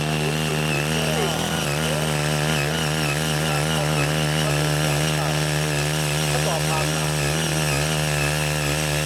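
Small 5 HP engine of a CY80 mini cultivator running steadily under load, its pitch wavering slightly, as the rotary tines till hard red laterite soil.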